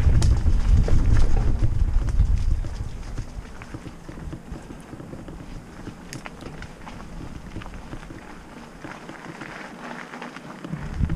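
Mountain bike riding a dirt singletrack: wind buffets the camera microphone for the first two to three seconds, then it goes quieter, leaving scattered clicks and rattles of the bike and its tyres on the trail.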